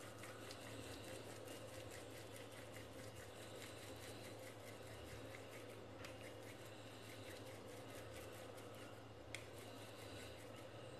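Faint, soft rubbing and ticking of oiled hands rolling besan dough into a log, over a low steady room hum, with one small click near the end.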